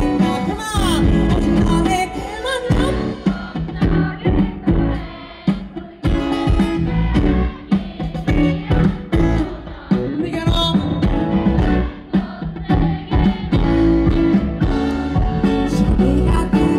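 Live pop band music over a PA system: guitar-led accompaniment with a steady beat and singing.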